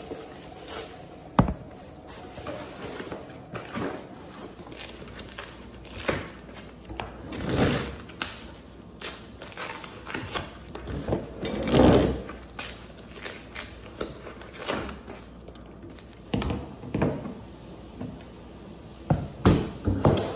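Handling sounds of unpacking and assembling a chair: plastic wrapping rustling off the wooden chair legs, with scattered knocks and clicks as the legs and metal frame are handled and fitted together. The loudest rustles come at about seven and twelve seconds in, and a few sharp knocks come at about a second and a half in and again near the end.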